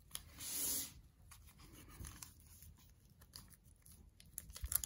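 A 1990 Fleer baseball card wax pack being torn open by hand. There is one brief tearing rasp of the wrapper about half a second in, then faint rustling and small crackles that grow quicker near the end.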